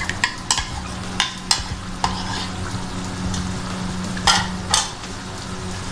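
Chicken karahi sizzling in an aluminium pot over a high gas flame, while a metal spoon clinks against the bowl and pot as yogurt is scraped in. Two louder knocks come a little past four seconds.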